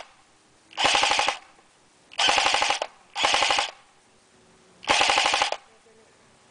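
Airsoft M14 rifle firing four short full-auto bursts, each about half a second of rapid, evenly spaced shots, with pauses between them.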